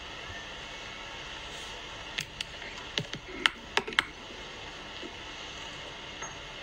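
Camera handling noise: a quick run of about seven sharp clicks and knocks between about two and four seconds in, over a steady hiss.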